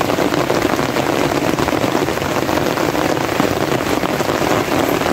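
Hard rain falling, a loud, steady, dense patter of drops.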